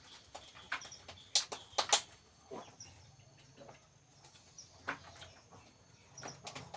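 Scattered sharp clicks and knocks while a goat is dosed by mouth with liquid herbal medicine, the loudest pair about one and a half to two seconds in, with birds chirping in the background.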